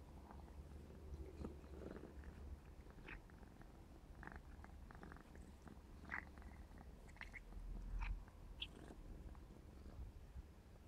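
Young Maine Coon kitten purring steadily as a low rumble while it play-bites and paws a hand, with faint scattered clicks and rustles of fur and mouth.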